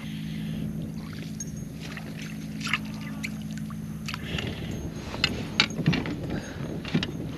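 Steady low hum of the kayak's motor, which cuts out about four seconds in. Water then sloshes and splashes against the hull, with scattered sharp knocks and clicks.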